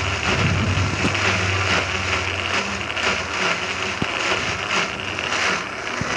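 Small electric blender running at full speed, its blades churning chopped red chilies, shallots, garlic and shrimp paste with a little oil into a wet spice paste. A steady, loud whirring.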